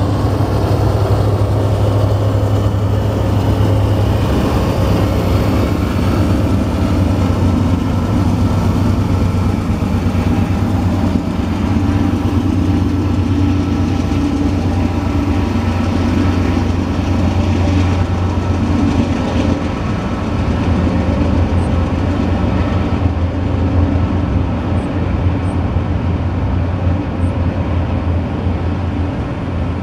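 BNSF coal train passing: diesel locomotives running, then a long string of coal hopper cars rolling by on the rails with a steady low rumble.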